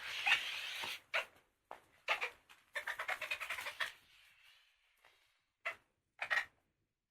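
Furniture dragged across a floor with a scraping sound: about a second of steady scraping, then a run of short, juddering scrapes, and two brief scrapes near the end.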